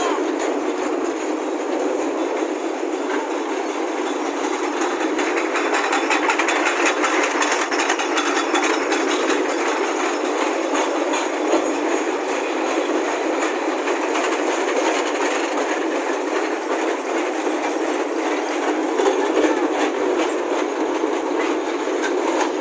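Sugarcane train's wagons rolling along the track, wheels and couplings clattering steadily on the rails.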